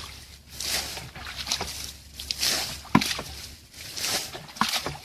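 Water being bailed from a muddy pool with a plastic bucket: repeated scoop-and-throw splashes. There is a sharp knock about three seconds in.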